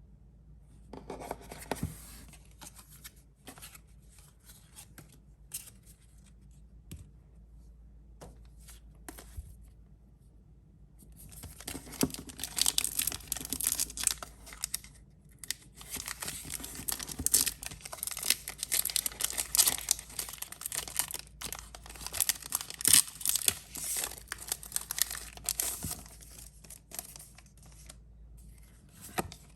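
Pokémon card product packaging being torn open and crinkled by hand: light scattered handling clicks at first, then about a quarter of a minute of dense tearing and crinkling that eases off near the end.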